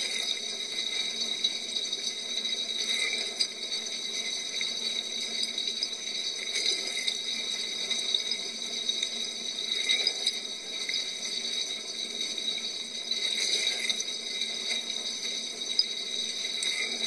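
Dishwasher wash cycle heard from inside the tub: water spraying steadily against the walls and racks, swelling about every three seconds.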